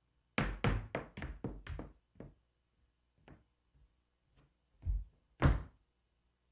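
Woman's low-heeled strap dance shoes striking a wooden stage floor in polka footwork. A quick run of about six taps comes in the first second and a half, then a few light taps, then two strong stamps near the end.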